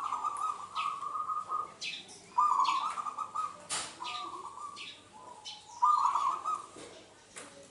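Zebra dove (perkutut) cooing: three rapid, trilled coo phrases, one running through the first two seconds, the next at about two and a half seconds in and the last at about six seconds. Short high chirps of small birds sound between them.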